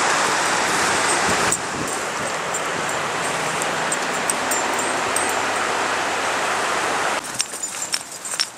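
Steady rushing of creek water. About seven seconds in it cuts off abruptly, giving way to scattered crunchy footsteps on dry fallen leaves.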